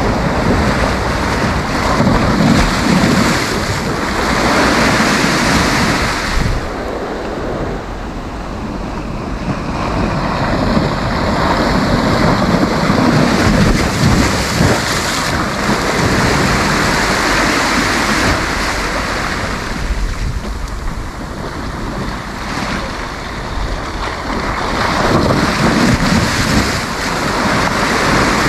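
Sea waves breaking and washing up a sandy beach, the surf swelling and ebbing every few seconds, with wind buffeting the microphone.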